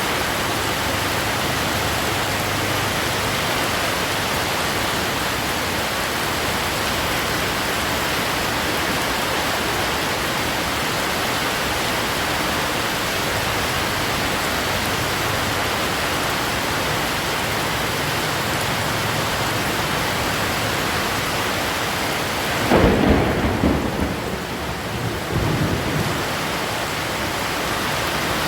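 Heavy rain falling and splashing in a steady hiss. Near the end, a low rumble of thunder rolls in two surges for a few seconds and is the loudest sound.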